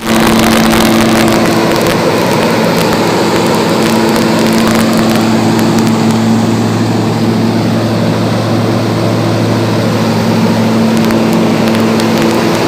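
A mine's main mechanical ventilator fan running steadily: a loud, even rush of air with a constant hum.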